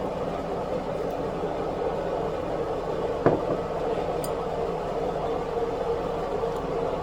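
A household appliance running with a steady hum and a constant tone, with one sharp click about three seconds in.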